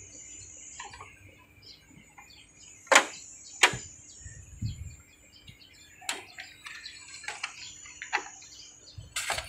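Sharp plastic-and-metal clicks from handling the replacement circuit board and the opened air conditioner's panels: two loud clicks about three seconds in and another near the end. Small birds chirp faintly throughout.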